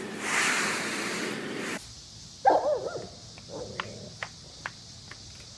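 A dog barks, a short sharp bark with a yelp after it. Before it there is an even rustling noise that cuts off suddenly, and after it come several sharp clicks.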